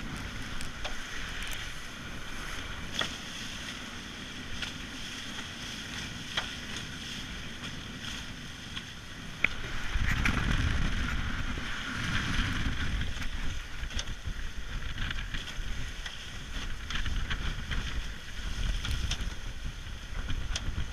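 Racing catamaran under sail: water rushing past the hulls and wind buffeting the microphone, with scattered clicks and knocks from the rigging and gear. It gets louder about ten seconds in.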